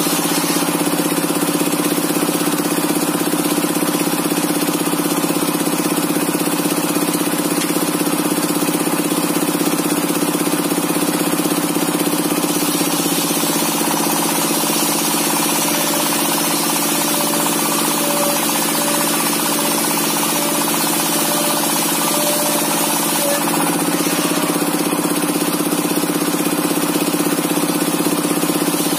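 Single-cylinder 'dompeng' diesel engine running steadily, driving a homemade table-mounted circular saw. A faint, broken higher tone joins in between about 13 and 23 seconds in.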